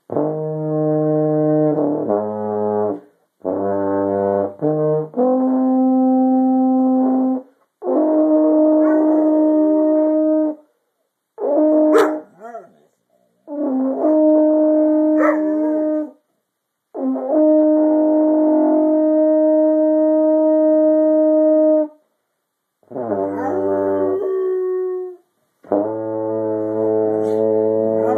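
Baritone horn playing long held low notes in phrases with short breaks, while a Dalmatian howls along, its wavering howls rising and falling over the notes, clearest about halfway through.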